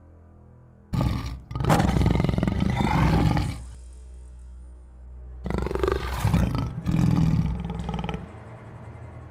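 Tiger roaring twice: a first roar of about two and a half seconds starting about a second in, and a second roar about five and a half seconds in, over a faint low hum.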